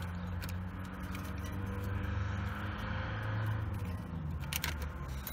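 Steady low hum of a machine or engine running nearby, with a few faint clicks.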